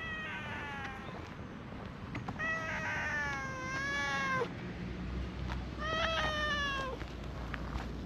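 An orange-and-white cat meowing three times while being stroked: a short call, then two longer drawn-out meows, each sliding down in pitch at the end.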